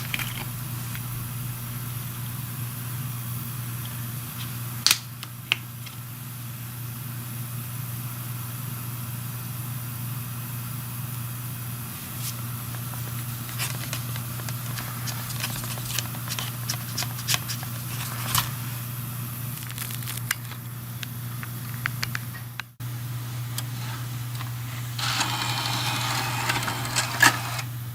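Handling noise over a steady low hum: scattered light clicks, then a burst of rustling near the end, as a Blu-ray case and its packaging are handled.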